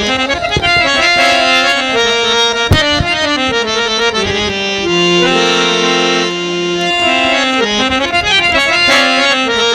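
Traditional music played on a reed instrument of the accordion or harmonium kind: a melody of held notes that step from pitch to pitch, with a few sharp percussion strikes in the first three seconds.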